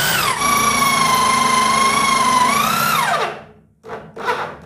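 Corded electric drill driving a hole saw through a laminated wooden board: a steady high motor whine that dips in pitch as the saw bites, then winds down as the trigger is let go about three seconds in. Two short bursts follow near the end.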